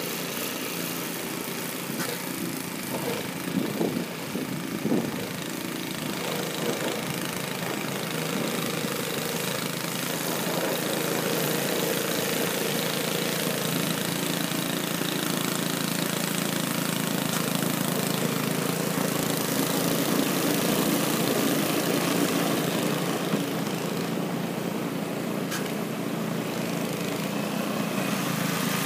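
Gas engine of a walk-behind snow blower running steadily while it clears snow, with a few irregular louder knocks about four seconds in.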